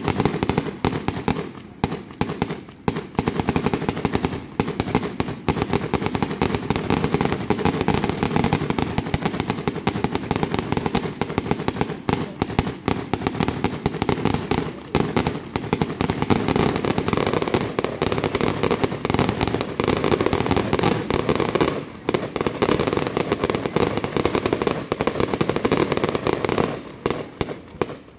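Fireworks display: a dense, continuous barrage of bangs and crackling that thins out near the end.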